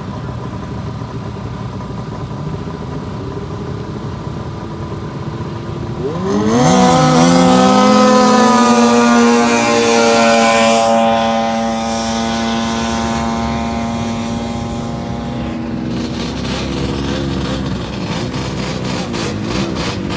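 Vintage racing snowmobile's two-stroke engine idling, then launching about six seconds in: the pitch climbs sharply, holds steady at high revs, and fades as the sled pulls away down the drag strip.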